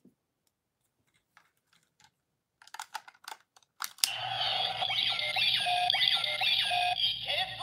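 Light plastic clicks as a Ryusoul is worked into a Ryusoul Changer toy. About four seconds in, the changer starts playing loud electronic sound effects and music, with quick rising and falling tones repeating over and over.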